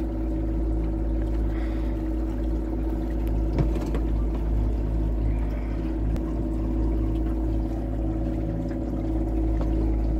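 Electric boat motor running at full throttle with a steady whine, over the rush of water and wind as the boat moves fast. A brief knock comes about three and a half seconds in.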